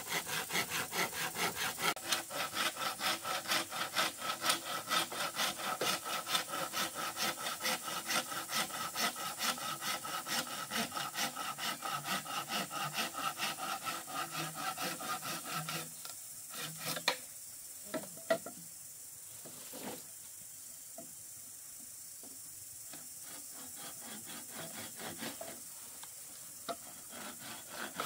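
Hand saw cutting through a green bamboo pole in fast, even back-and-forth strokes. The sawing stops about 16 seconds in, leaving a few scattered knocks, and starts again faintly near the end.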